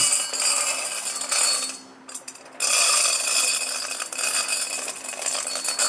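Dry cat food kibble pouring from a bag into a stainless steel bowl: a dense rattle of small pellets hitting metal. It breaks off briefly about two seconds in, then resumes.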